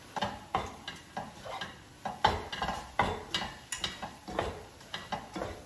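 Spatula stirring and scraping gram flour, roasted in ghee with turmeric, around an iron kadhai, in uneven strokes about twice a second.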